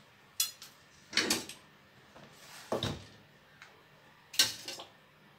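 A metal serving spoon knocking and scraping against a metal pot and pan four or five times, short sharp clinks, while meat sauce is scooped out and dropped onto lasagna sheets.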